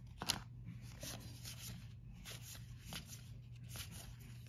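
Magic: The Gathering cards being flicked through and slid past one another in the hands: faint rustling, with one sharp click a moment in.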